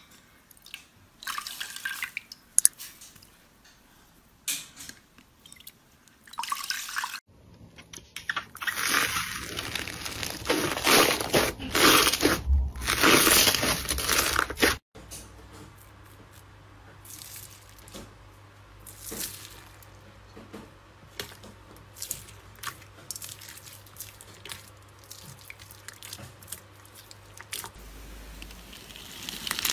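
Hands squeezing and kneading slime: at first scattered wet squishes and pops as a sponge is pressed into clear slime, then a louder stretch of dense crackling as fluffy slime is worked in a tub, then quieter scattered crackles.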